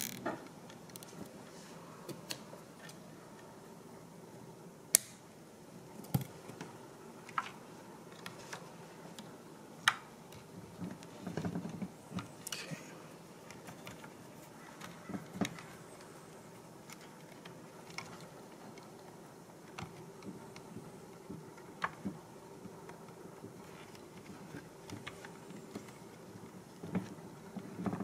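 Small handling noises from wiring work inside an electric bidet seat's plastic housing: wires rustling and scattered sharp plastic clicks and taps. The two loudest clicks come about five and ten seconds in, and a stretch of rustling follows just after.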